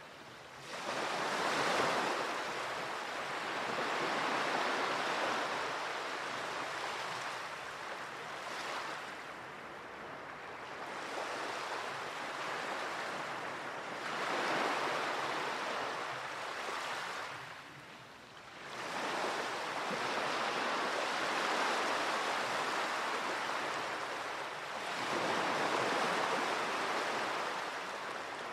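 Sea waves washing ashore, the hiss of water swelling and fading every few seconds as each wave comes in and draws back.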